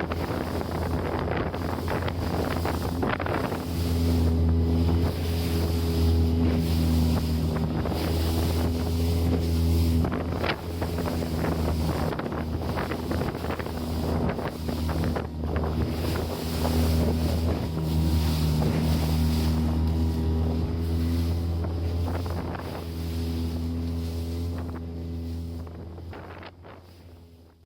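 Suzuki DF20A two-cylinder four-stroke outboard running steadily at speed, pushing a RIB, with wind buffeting the microphone and water rushing past the hull. The sound fades out near the end.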